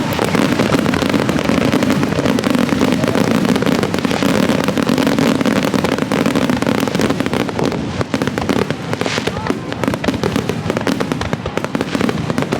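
Fireworks going off in quick succession at the start of a display, a continuous dense crackling and banging of shells bursting close overhead.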